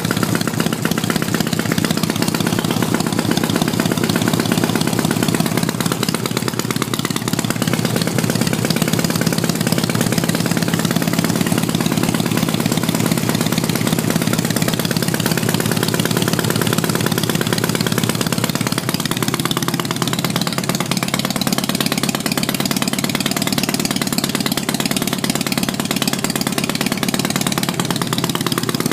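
Soviet Dnepr motorcycle's four-stroke flat-twin engine idling steadily, running without a battery on a scooter CDI ignition fed by a Honda Dio generator.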